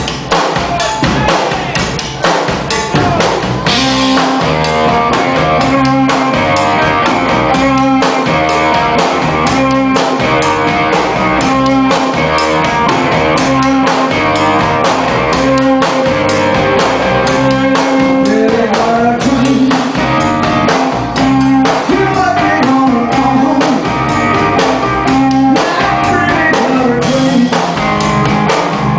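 Live blues band playing: drum kit, electric guitar and upright bass working a repeating riff over a steady beat.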